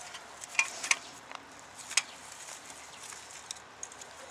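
Steel tines of a Tornado hand twist-cultivator working loose garden soil: a handful of short, sharp scraping clicks as the tines twist and catch on grit and stones, the loudest about two seconds in.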